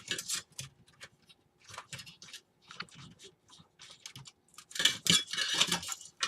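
Scattered light clicks and rattling of computer parts and cables being handled in a PC case, with a denser, louder burst of rattling about five seconds in.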